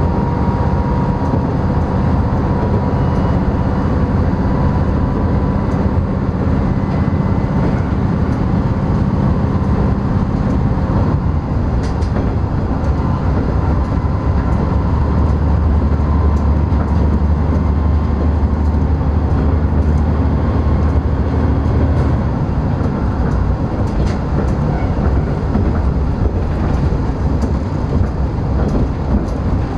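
Noto Railway NT100 diesel railcar running along the line, heard from inside the cab: a steady engine drone with wheel and rail noise. The low engine note swells about halfway through and then eases, and a few sharp clicks come through.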